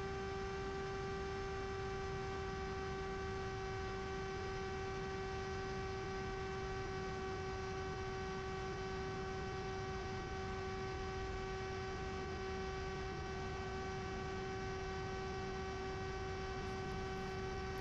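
A steady electric hum at one unchanging pitch with a stack of evenly spaced overtones, over a faint low rumble of noise.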